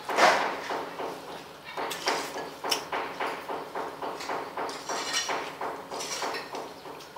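Eating sounds of people having noodle soup from ceramic bowls with spoons: a sharp sound right at the start, then a steady run of short clicks and smacks, about three a second.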